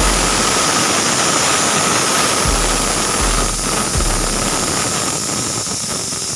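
Pressure cooker whistle blowing off steam in a loud, steady hiss with a faint high whistle tone in it: the cooker has reached pressure and the weight is venting.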